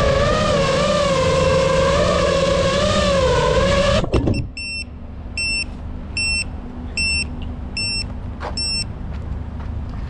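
FPV quadcopter's motors and propellers whining at a wavering pitch, cutting off suddenly about four seconds in as the drone comes to rest. Then a short electronic beep repeats about every 0.8 seconds, about six times, with a single click near the end.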